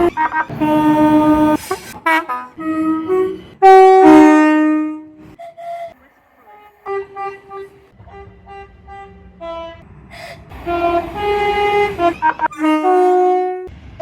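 Train horns blowing a series of blasts, some short toots and some longer chords of several notes at once. The loudest comes about four seconds in and falls in pitch near its end.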